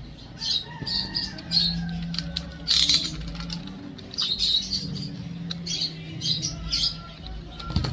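Utility knife cutting open a cardboard box in a string of short, scratchy scraping strokes.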